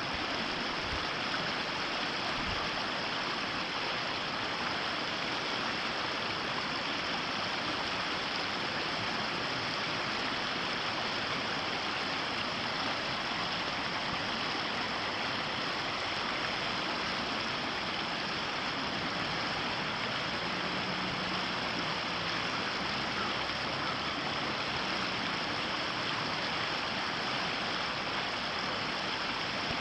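Flowing river water, a steady rushing.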